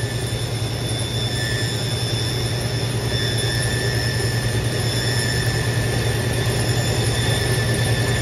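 Shoe-repair finishing machine running, its motor humming steadily while the sanding belt grinds against a leather boot's sole edge. A thin high squeal comes and goes, sounding through most of the second half.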